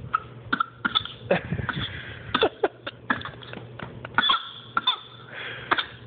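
A young child's fake coughs: a string of short, sharp coughs, put on to sound sick.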